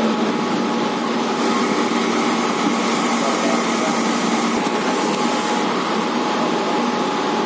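Electric suburban local train running at speed, heard from inside the coach by an open door: a steady loud running hum with a faint constant whine. A rush of extra hiss rises for a few seconds in the middle.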